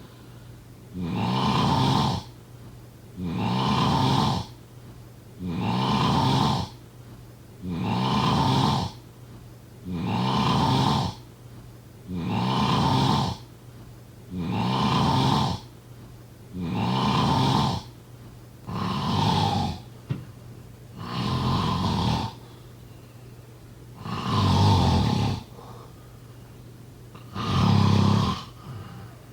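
A sleeping person snoring steadily, one snore about every two seconds, each lasting about a second; the snores come a little further apart near the end.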